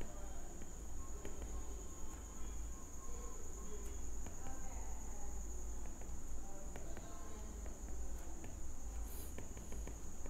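Background room noise: a low hum and a steady high-pitched tone throughout, with faint scattered taps of a stylus writing on a tablet screen.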